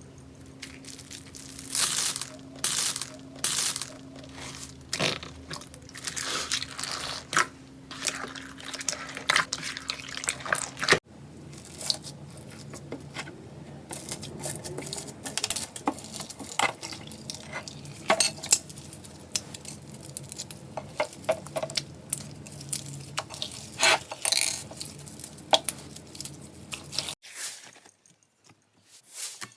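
Slime being squeezed and stretched by hand, full of sharp crackling pops and wet clicks, over a faint steady hum. The sound changes abruptly at about 11 seconds and again near the end as one clip gives way to the next.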